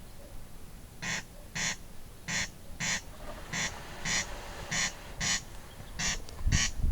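Corncrake calling its rasping two-part 'crex crex', five double rasps in steady rhythm, about one pair every second and a bit. A low rumble comes in just before the end.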